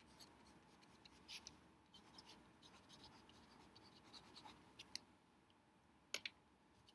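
Faint pencil scratching on sketchbook paper in short, irregular strokes of writing or drawing, with a couple of sharper taps about six seconds in.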